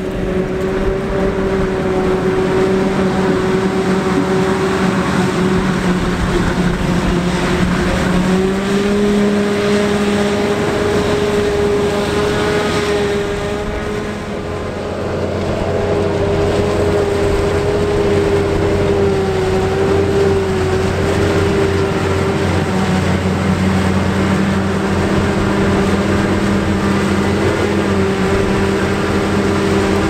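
Self-propelled forage harvester and the tractor beside it running under load while chopping corn: a steady machine drone whose held tones waver in pitch. It dips briefly about halfway through, after which a deeper hum joins.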